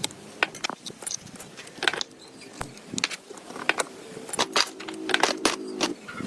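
Small metal parts and hand tools clicking and clinking irregularly during workshop restoration work. A steady low hum joins for about a second and a half near the end.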